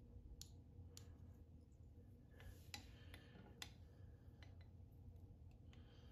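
Near silence: room tone with a few faint, scattered clicks and a brief soft rustle about two and a half seconds in, from small handling noises at the fly-tying vise.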